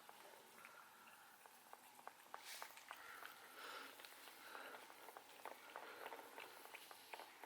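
Near silence, with faint scattered small clicks and ticks.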